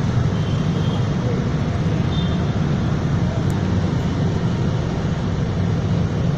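Toyota HiAce Commuter's 2.5 L common-rail diesel engine idling with a steady low rumble.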